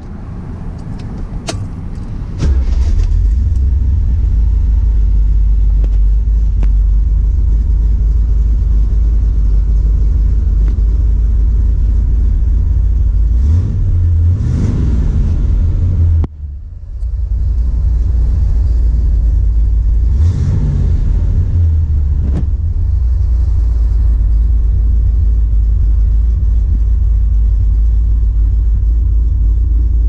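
1965 Corvette L79 327 V8 running, heard from inside the cabin with a loud, deep, steady sound. It comes up to full strength about two and a half seconds in, rises in a rev around fourteen seconds in that cuts off sharply, and blips again about twenty seconds in.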